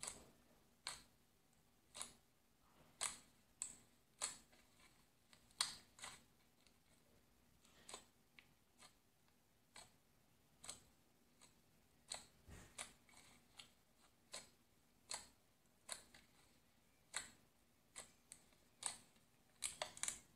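Fingers pressing and squishing a thick beige slime, giving faint sticky clicks and pops at an irregular pace of about one to two a second.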